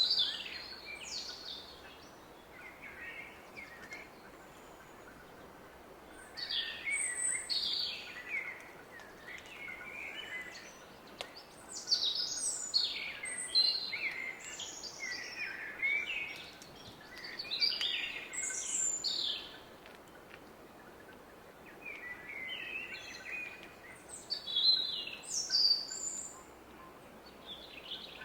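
Woodland songbirds singing in short, separate bouts of high chirping phrases every few seconds, over the steady hiss of a distant river.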